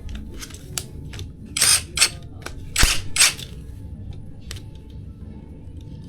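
A run of sharp clicks and snaps over a low steady rumble, with four louder snaps close together between about one and a half and three and a half seconds in.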